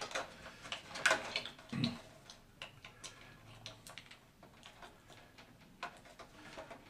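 Scattered light clicks and taps from small plastic parts being handled: a glue bottle and a 3D-printed servo tray being fitted into the wing. The loudest clicks come about a second in, with fainter ticks after.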